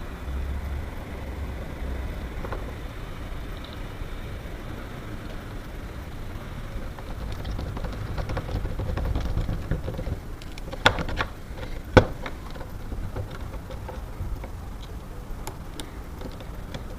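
Hinge-bending tool being tightened and worked on a metal door hinge: low handling noise with scattered sharp clicks, two loud ones about eleven and twelve seconds in.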